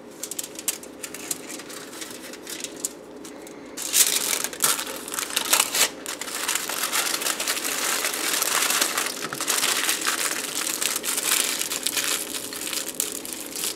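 Aluminium foil crinkling and crumpling as a filled flatbread is rolled up in it and the foil is pressed and twisted around the roll. Soft scattered crackles at first, then louder, continuous crinkling from about four seconds in, over a faint steady hum.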